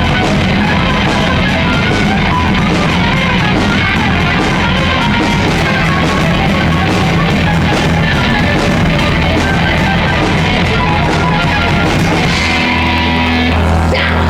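Loud rock music with electric guitar. About twelve and a half seconds in, it gives way to a few steady held notes.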